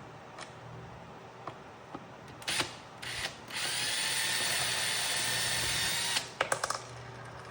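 Power drill driving a screw: two short bursts, then a steady whine for about two and a half seconds that ends in a quick run of clicks. The drill has grown weak.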